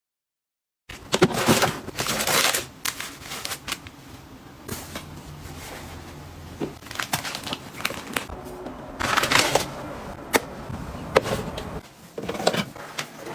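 Household items being handled and put away: irregular light clicks and knocks, with rustling and crinkling in between. It starts after about a second of dead silence.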